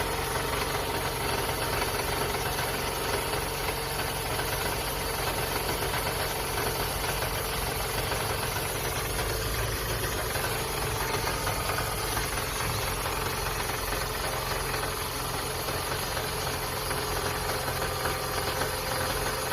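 Toyota Vellfire (20 series) 2.4-litre four-cylinder engine running steadily with a knocking, rattling noise from the oil pan, the sign of stripped teeth on its resin balancer-shaft drive gear.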